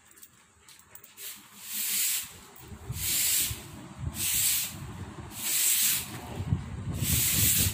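Long-handled straw broom sweeping a rough concrete floor: five scratchy swishes, about one a second, starting about a second in.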